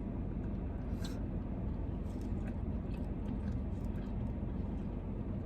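Steady low background rumble, with a sharp click about a second in and a few faint ticks from someone eating a takeout meal.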